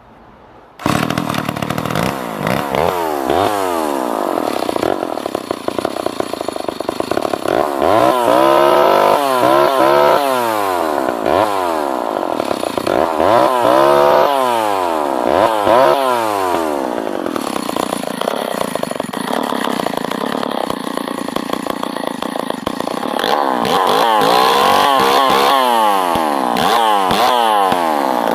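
Vintage Lombard two-stroke chainsaw firing up on a restart about a second in. It is then revved up and down again and again, with a steadier stretch of running in the middle.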